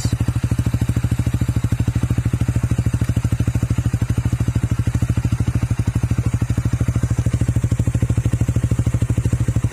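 Honda Supra GTR 150 single-cylinder engine idling steadily through an MVR1 racing exhaust. The aftermarket muffler gives an even, rapid exhaust pulse with a full-bodied tone.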